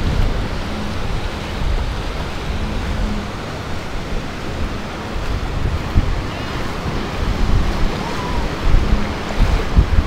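Ocean surf washing onto the beach, with wind buffeting the microphone.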